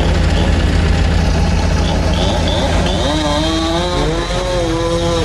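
Engine running steadily at a low idle, with a second motor's pitch rising and falling over it in the second half.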